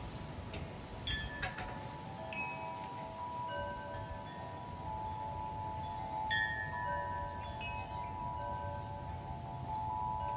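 Metal wind chimes ringing in the wind: scattered strikes, each leaving several clear tones that ring on and overlap, with a low wind rumble underneath.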